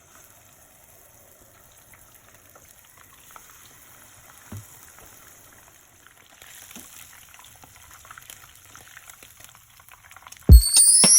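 Faint sizzling and crackling of food frying in hot oil. Near the end, loud music starts suddenly.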